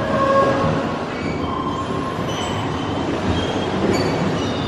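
A steady rumbling rush of noise with short, high squeals scattered through it, like an underground train running.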